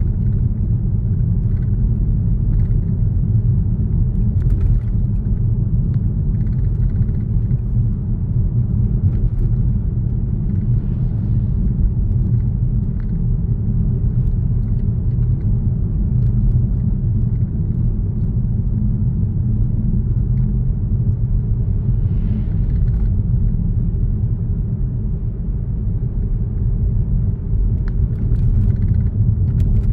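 Car driving steadily along a road: a continuous low rumble of tyres and engine.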